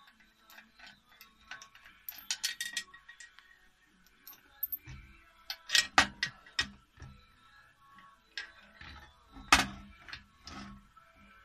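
Handling clicks and knocks as a wooden block is set in a drill-press machine vise and the vise screw is turned by its handle. A quick run of clicks comes about two seconds in, with louder knocks in the middle and again near the end.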